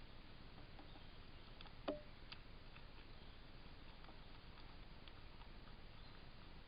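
Faint woodland ambience picked up by a wildlife camera: a steady low hiss with scattered soft ticks and one sharper click about two seconds in.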